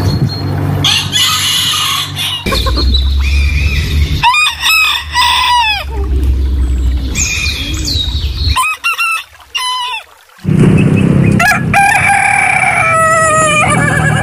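Several roosters crowing one after another, each a separate cock-a-doodle-doo call from a different bird. The sound changes abruptly between crows.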